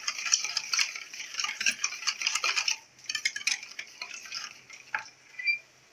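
Yogurt being beaten with spices in a bowl: a utensil clinks and scrapes rapidly against the bowl for about three seconds, then slows to a few scattered taps.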